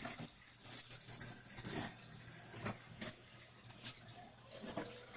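Water running into the wash tub of a Giantex portable twin-tub washing machine, refilling it for the rinse. It is faint, with small irregular splashes.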